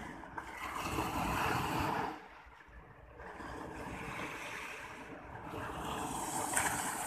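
Sea waves breaking and washing up the sand, with wind on the microphone; the rush swells about a second in, falls away a little after two seconds, then builds again.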